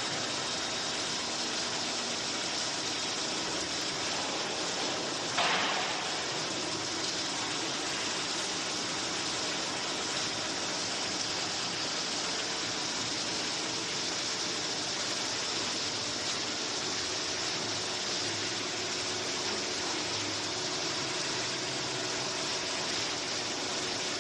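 Steady hiss with a faint low hum from a running Powerjet DP1700 two-platen injection molding machine on the factory floor, with one brief louder knock or hiss about five seconds in.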